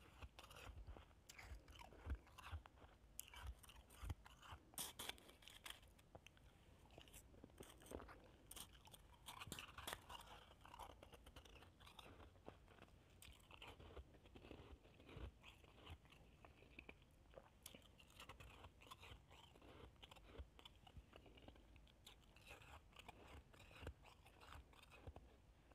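Shaved ice being chewed: a quiet, irregular run of small crisp crunches.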